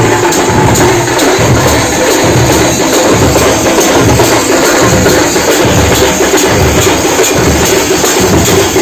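Loud drum ensemble beaten with sticks in a fast, steady rhythm, with deep drum beats about twice a second under rapid sharp strokes.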